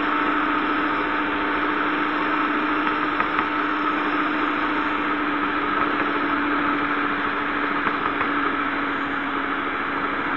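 Electric stand mixer running at a steady speed, its twin dough hooks turning soft brioche dough in a plastic bowl: a constant motor hum with a steady whine.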